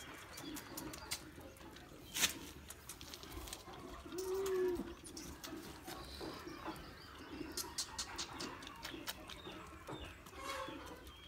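A pigeon cooing: one clear rising-and-falling coo about four seconds in, with fainter low coos around it. Scattered sharp clicks, one loud about two seconds in, come from a baby goat sucking on a milk feeding bottle.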